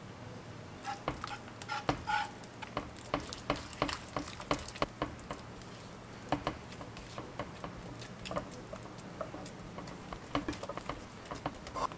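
A silicone spatula stirring, folding and scraping thick, sticky glutinous rice (mochi) dough in a nonstick pan. Starting about a second in, there are irregular quick clicks, taps and small squelches as the dough is worked.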